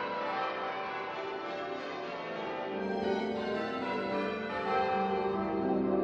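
Church tower bells being rung from ropes, many bells sounding in quick overlapping succession. Deeper bell tones join in and grow louder about three seconds in.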